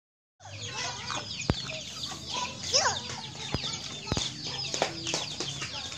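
Chickens clucking, over dense high-pitched chirping, with three sharp clicks in the middle.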